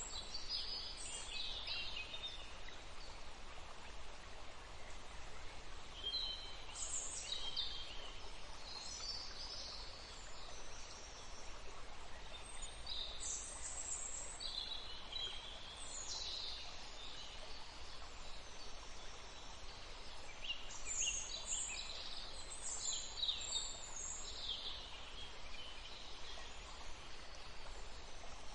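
Wild birds calling in clusters of short, high chirps and trills, several times over, above a steady soft background hiss.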